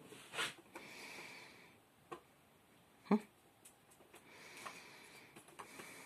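A few light taps and knocks, with faint scrabbling, from a pet red squirrel moving over a cluttered tabletop among papers and boxes. The loudest knock comes about three seconds in.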